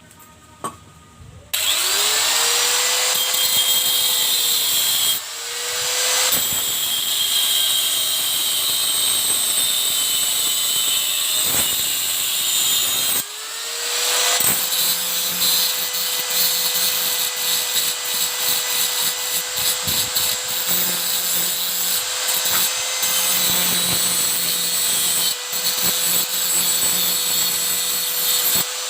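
Small high-speed electric power tool switched on about a second and a half in. Its motor spins up to a steady whine and cuts or grinds material with a rasping hiss. It is let off briefly twice, and each time it spins back up.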